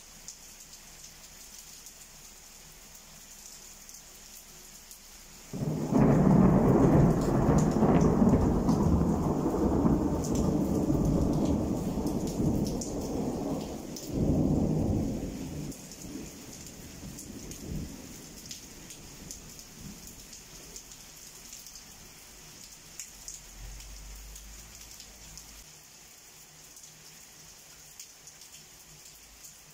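Steady rain with a thunderclap about five seconds in that rolls on as a loud rumble for about ten seconds, swells once more near the middle, then dies away.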